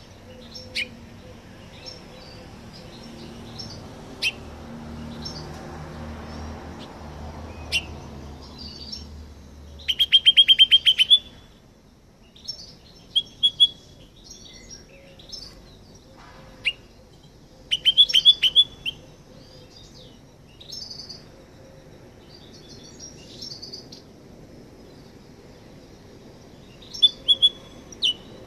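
Male house finch singing: sharp single call notes a few seconds apart, then fast trills and warbled phrases in bursts, the loudest trill about ten seconds in. A faint low rumble sits underneath for the first third.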